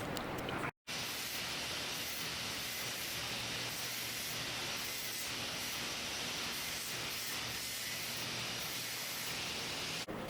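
Steady, even hiss of background room noise, broken by a moment of complete silence about a second in.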